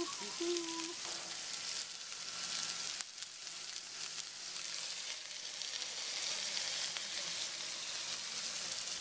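Mahi-mahi fillets sizzling in a cast iron skillet of oil heated to smoke point, a steady frying hiss as the fish is seared for blackening.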